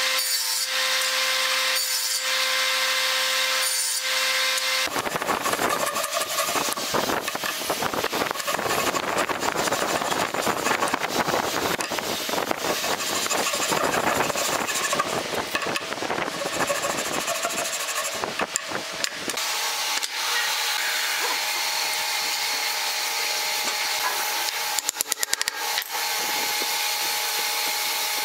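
Table saw motor running with a steady hum and blade whine as a board is fed through. About five seconds in, it gives way to a hand saw cutting wood in rapid rasping strokes. Later the sound thins to a steadier rasp, with a quick cluster of clicks near the end.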